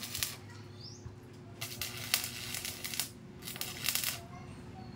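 Electric arc welding on the sidecar's steel frame: the welding arc crackles and sizzles in short runs of under a second, with pauses between them, over a steady low hum.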